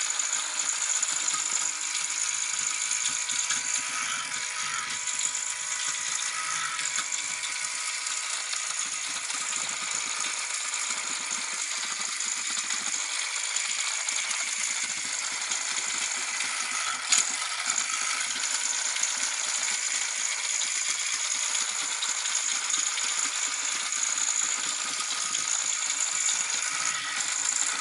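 Small battery-powered toy cleaning robot running: a steady high whirr with rattling, and one sharp click about seventeen seconds in.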